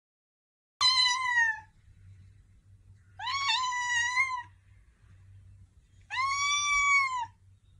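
A black Scottish Fold cat meowing three times, each a long drawn-out meow of about a second or more, a couple of seconds apart.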